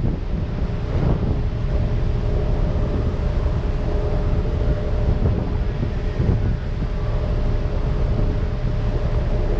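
Ferry engine running steadily, a low rumble with a steady hum, mixed with wind buffeting the microphone.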